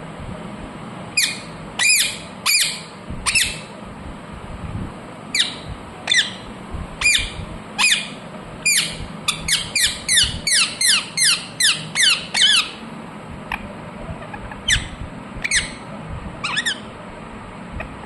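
Indian ringneck parakeet giving short, shrill calls that each drop in pitch. They come singly at first, then as a fast run of about a dozen in quick succession around the middle, then a few more spaced out.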